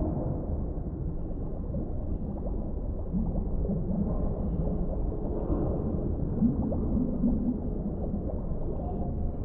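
Deep-sea underwater ambience: a steady, muffled low rumble of water, with a low wavering moan about three seconds in and another near seven seconds.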